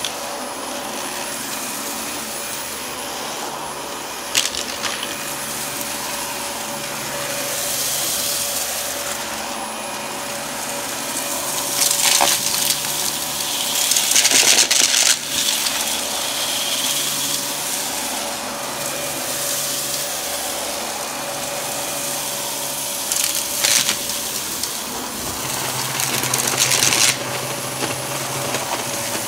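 Dyson vacuum cleaner running steadily with a constant motor whine as it is pushed over carpet. Debris clatters and rattles up into it in several spells, the longest about halfway through.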